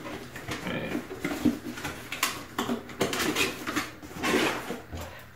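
A cardboard tool box being opened by hand: its end tab and flap are pulled and worked open, with cardboard scraping and rustling in short, irregular bursts.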